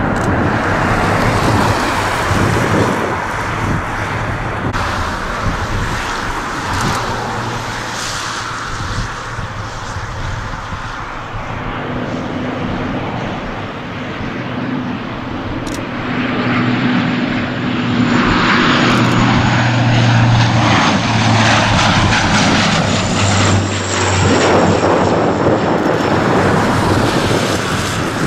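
A twin-engine jet airliner's engines roar during its landing roll for the first ten seconds or so. Then comes the steady low drone of a De Havilland Canada Dash 8 turboprop's propellers on final approach, growing louder about halfway through, with a thin high whine above it.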